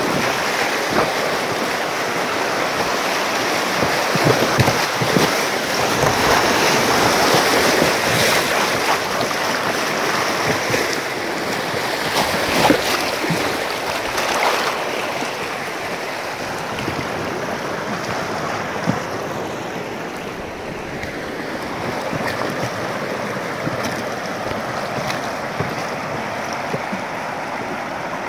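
River water rushing through rapids, a steady loud wash that eases a little about halfway through.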